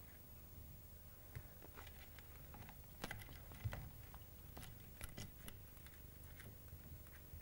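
Faint, irregular clicks and taps from a Bengal kitten playing on a rug, over a low background hum, with the busiest clicking a little before the middle.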